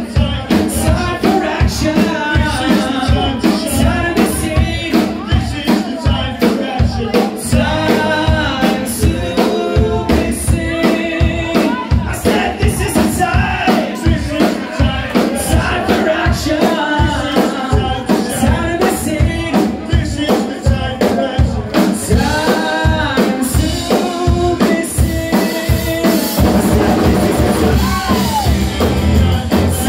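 Live rock band playing loud and amplified: a male lead singer over electric guitar, bass guitar and a Pearl drum kit keeping a steady beat.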